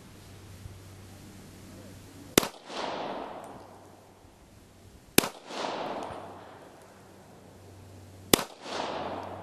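Steyr Hahn M1912 semi-automatic pistol firing three single shots, roughly three seconds apart, each followed by a fading echo.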